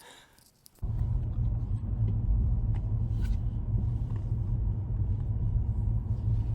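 Steady low rumble of a moving car heard from inside the cabin, cutting in abruptly just under a second in.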